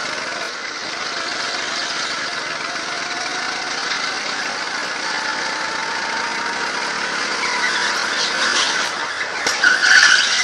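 Go-kart engine running under throttle as the kart laps, with a short high-pitched tyre squeal near the end as it slides into a corner.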